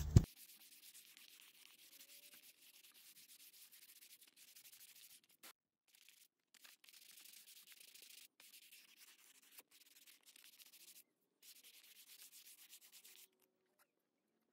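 Hand sanding a painted bumper cover with a sanding sponge: a faint scratchy hiss of quick back-and-forth strokes that pauses briefly a few times and stops near the end. A single sharp click opens it.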